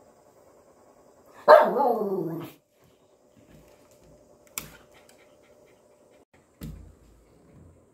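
A small dog gives one drawn-out bark lasting about a second, its pitch falling. Later comes a single sharp click and then a soft low thump as the dog rears up and paws at lacquered furniture.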